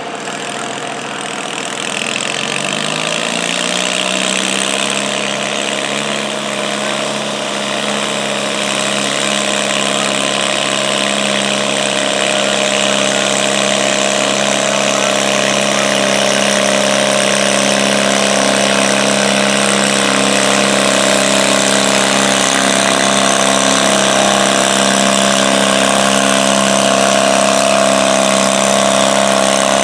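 Garden tractor engine revving up in the first couple of seconds, then running at a steady high speed under load while pulling a weight-transfer sled, growing louder as it comes closer.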